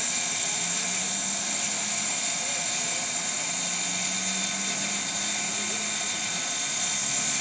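Live steam locomotive venting a loud, steady hiss of steam that holds at an even level.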